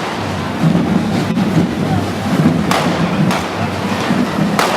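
Handheld festival fireworks and firecrackers cracking sharply a few times, about three in the second half, over a steady loud din of crowd noise.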